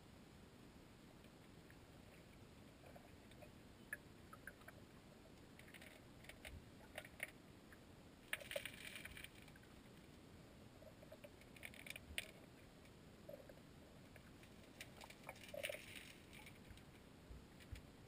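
Faint underwater creek ambience picked up by a submerged camera: a low steady hiss with scattered soft clicks and a few short crackling bursts.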